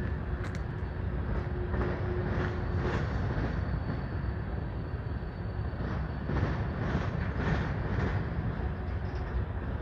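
Freight train's cars rolling past, a steady rumble with the irregular clack of steel wheels over the rails.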